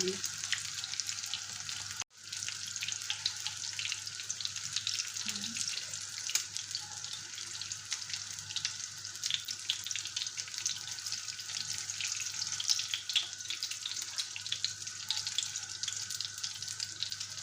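Semolina-coated carrot patties frying in hot oil in a pan, a steady sizzle full of fine crackles. It cuts out completely for a moment about two seconds in.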